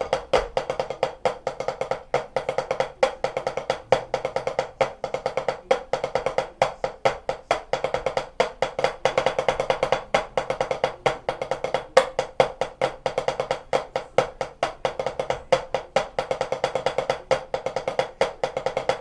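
Drumsticks playing a steady, fast rhythm on a drum practice pad, about five even strokes a second, each with a short ringing ping.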